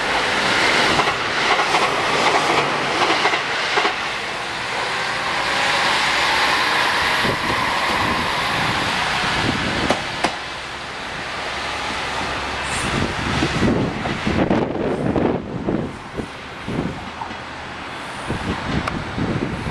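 Amagi Railway AR300-series diesel railcar pulling away from a station, its diesel engine running under load as it passes close. As it draws off, the wheels clack over rail joints, with a brief high squeal about two-thirds through.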